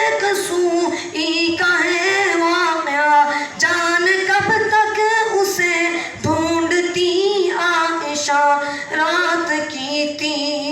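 A young child singing an Urdu naat unaccompanied, in long, wavering, ornamented notes.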